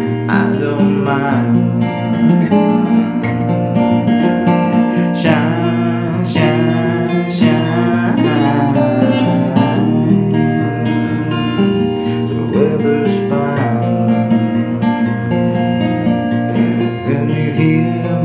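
Acoustic guitar strummed steadily in a rhythmic chord pattern, with a voice singing along in places.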